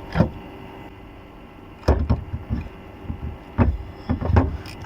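Irregular knocks and clunks of hands and tools working on a car's intake manifold while a pipe behind it is disconnected: one knock near the start, a cluster about two seconds in, and several more in the last second and a half.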